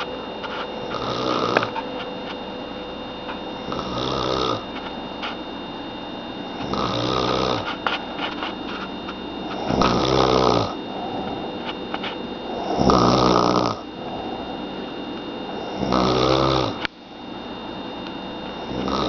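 A sleeping woman snoring in loud, regular snores. Each snore lasts under a second and they come about every three seconds.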